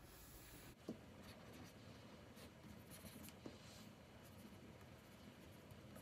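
Faint scratching of a stylus nib stroking across the surface of a Wacom Cintiq 24 Pro pen display, with two light ticks, one about a second in and one about three and a half seconds in.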